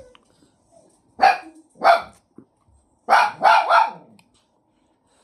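A dog barking: two single barks, then a quick run of three.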